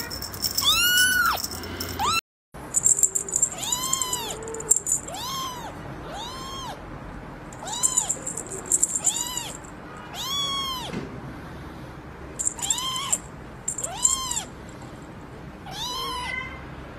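A young kitten mewing over and over: short, high calls that rise and fall in pitch, about one a second, with a brief gap a little over two seconds in.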